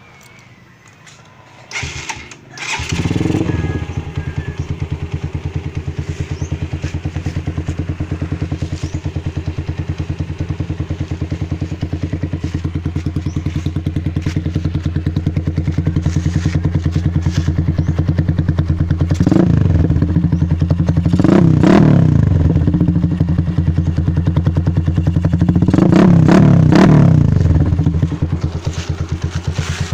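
Rusi DL150 motorcycle engine starting about three seconds in, then idling with a steady, even beat. It is revved briefly three times in the second half.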